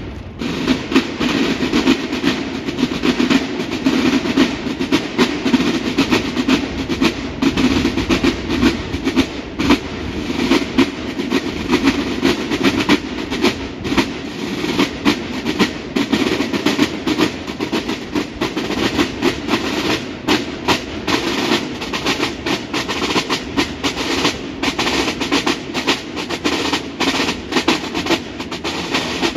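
Military marching drums, mainly snare drums, playing a fast, dense cadence of rapid strokes and rolls.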